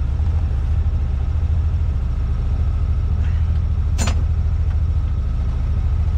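A vehicle engine idling steadily, with a single sharp click about four seconds in.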